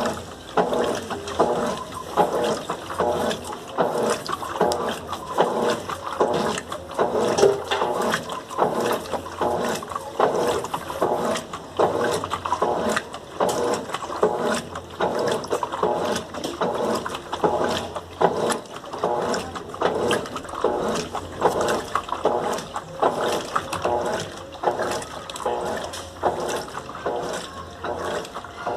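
Colormaq LCA11 top-loading washing machine agitating a load of bed linen and towels: rhythmic sloshing and swishing of water and fabric, about two surges a second.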